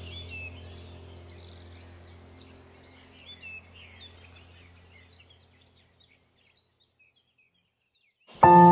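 Background ambient music: bird chirps over a low steady drone, fading out to silence about six seconds in. Near the end a new track starts with a sudden bell-like strike that keeps ringing.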